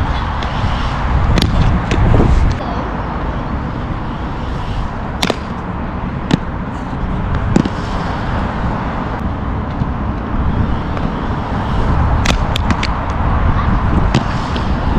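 Inline skate wheels rolling over concrete, a steady rumble with sharp clicks and knocks scattered through it.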